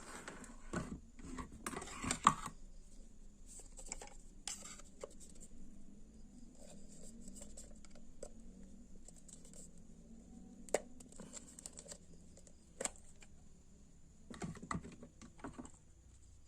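Plastic base of a 45-watt compact fluorescent bulb being pried apart by hand: scattered scrapes and clicks, with a sharp snap about two seconds in and a few single clicks later on.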